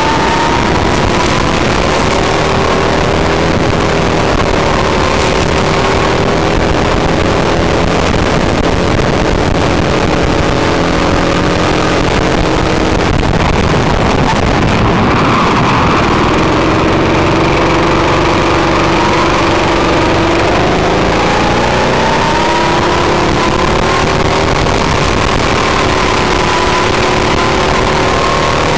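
Go-kart engine heard from onboard, running hard under race conditions. Its pitch climbs along the straights, drops away about halfway through as the kart slows into a corner, then climbs again.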